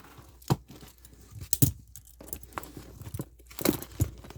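A cardboard package being opened and handled by hand after being cut open: a handful of scattered knocks and light clinks with faint rustling between.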